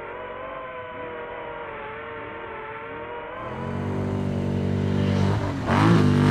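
Off-road race truck engine running and revving, its pitch wavering, then growing much louder over the last few seconds.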